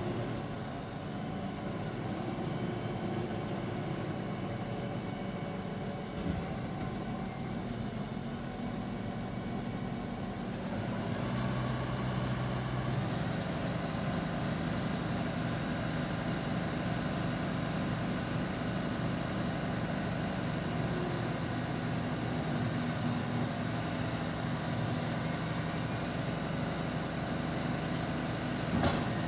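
Diesel engines of a Claas Arion 840 tractor and a JCB 435S loading shovel running steadily at a silage pit. About 11 seconds in, one engine note rises and grows louder and stays up, as the tractor revs to raise its silage trailer's body and tip the load; a single knock sounds near the end.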